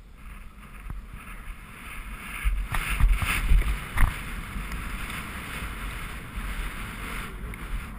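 Wind buffeting a horse-mounted action camera's microphone as the horse moves over grass, with hoofbeats and several louder thumps between about two and a half and four seconds in.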